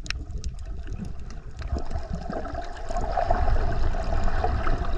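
Muffled water noise from a camera held underwater: a low rumble with scattered faint clicks, then a hissing, gurgling rush that swells about one and a half seconds in.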